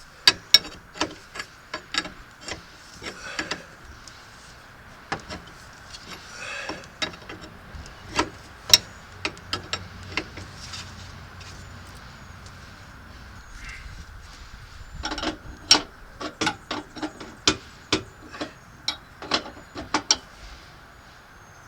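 Hand tools working on a propane regulator's fittings: irregular sharp metallic clicks and taps, in clusters about half a second apart, as a fitting is tightened until snug.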